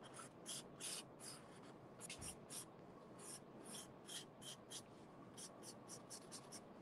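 Black marker drawing short lines on painted corrugated cardboard: a faint run of short scratchy strokes, about two or three a second.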